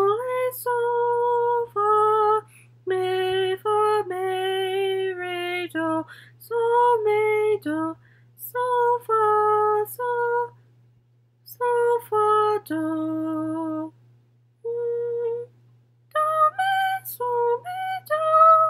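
A woman singing solfège syllables unaccompanied, one held note after another in short phrases, with pauses between them.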